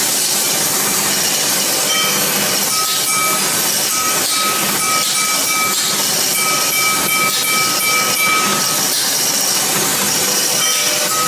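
Metal lathe running, its cutting tool turning a cast brass piece, with a steady hiss of cutting noise. A high whistling tone comes and goes from a couple of seconds in.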